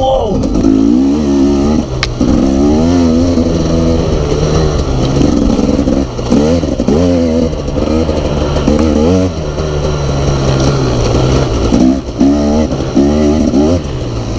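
2016 Husqvarna 701's single-cylinder engine, fitted with an Akrapovic silencer and an open airbox, revving up and down as the throttle is repeatedly opened and closed while riding.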